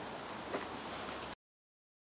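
A single light click of a hand tool on metal about half a second in, over a steady outdoor background hiss; the sound then cuts to dead silence a little past one second.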